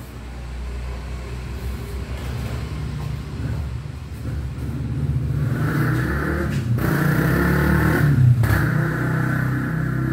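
A motor vehicle engine running nearby, building steadily in loudness and loudest about eight seconds in.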